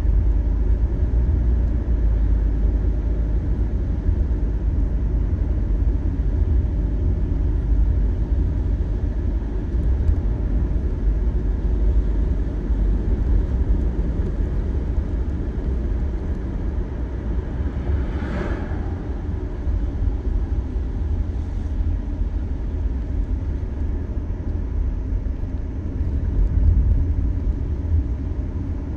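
Steady low rumble of a car's road and engine noise heard inside the cabin, driving on a wet road, with a short swish about eighteen seconds in.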